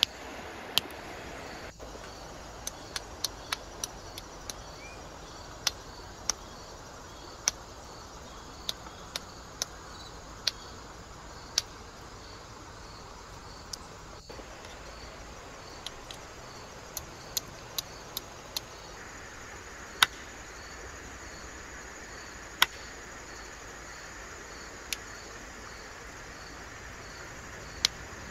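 Quartzite being flintknapped: sharp, irregular clicks of strikes on the stone, some in quick clusters and others seconds apart, over crickets chirping steadily.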